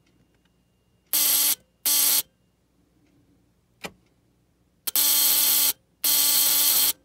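Ford Model T buzz coil buzzing in four bursts as its circuit is closed and opened, the vibrator points chattering to fire sparks at the plug: two short buzzes, then two longer ones of nearly a second each. A single sharp click comes between them.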